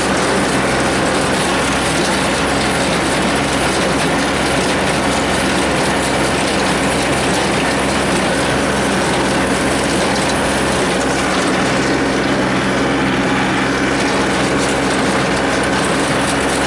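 New Holland small square baler running behind a tractor: the baler's mechanism clatters over the tractor engine's steady running.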